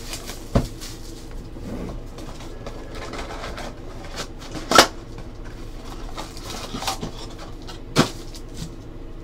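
Hands opening a cardboard trading-card box and pulling out its packs: rustling and scraping, with three sharp clicks or taps, the loudest about halfway through and another near the end.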